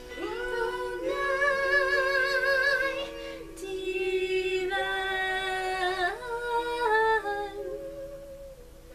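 A woman singing a slow worship melody without clear words, in long held notes with vibrato.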